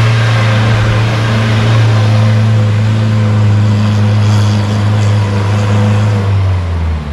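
Off-road 4x4's engine held at full throttle at steady high revs as the vehicle churns through deep mud. The revs fall away near the end.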